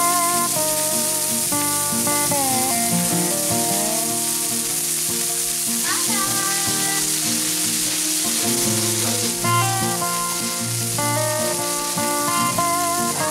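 Hamburger steaks and butter sizzling on a Blackstone flat-top propane griddle, a steady frying hiss. Background music with a melody of held, sliding notes plays over it.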